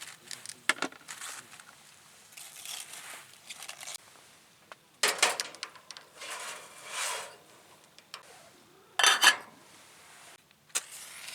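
Scattered handling sounds: light clicks and rustles, with two louder clattering bursts about five and nine seconds in.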